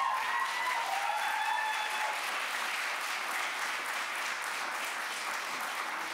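An audience applauding steadily, with a few voices calling out near the start; the clapping eases off toward the end.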